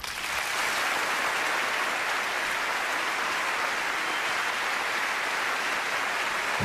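A large theatre audience applauding, swelling quickly at the start and then holding steady as a dense, even clapping.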